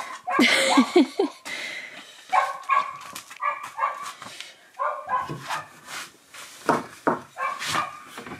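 A dog barking, then yapping and whining in a string of short calls.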